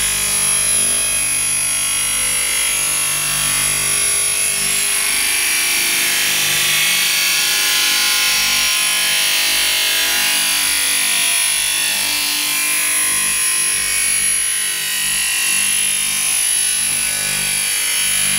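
Spiral duct forming machine running loud and steady as it rolls galvanized steel strip into a round spiral duct, with the grinding of its cutter sawing through the spinning steel duct partway through.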